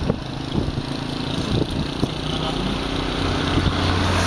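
Vehicle engine running with steady road and wind rush, heard from inside a moving vehicle.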